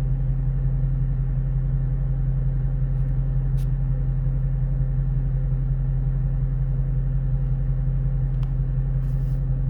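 A vehicle engine idling steadily, a constant low hum that does not rise or fall, with a couple of faint clicks.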